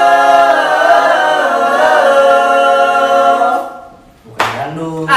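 A group of young male voices singing a cappella in harmony, holding a long final chord on "electric" that wavers and then dies away about three and a half seconds in. A short burst of noise follows just before voices start again.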